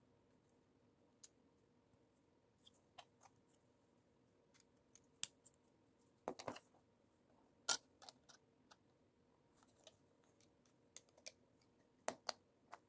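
Plastic LEGO bricks and plates clicking and snapping together as they are pressed on by hand. Scattered sharp clicks, with a quick cluster about halfway through, a single louder snap just after, and two more snaps near the end.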